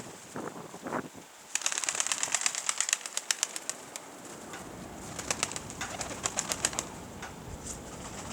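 Domestic pigeons: two short low calls in the first second, then two bursts of rapid wing beats, the second beginning about five seconds in.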